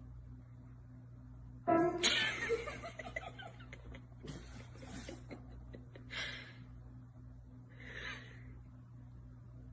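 A person laughing: a sudden loud outburst about two seconds in, then a few shorter bursts, over a low steady hum.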